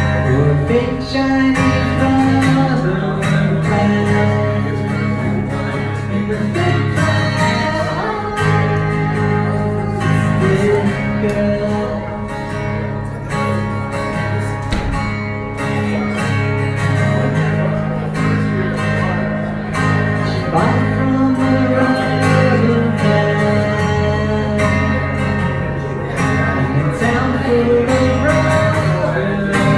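Acoustic guitar being strummed, with a man singing over it.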